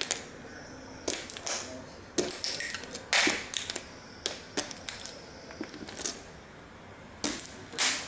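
Irregular sharp cracks and crunches of tiny model toy cars breaking under Nike Air Max 90 sneaker soles pressed down on a wooden floor. There are a dozen or so snaps, the loudest clustered about a second in, around three seconds, and near the end.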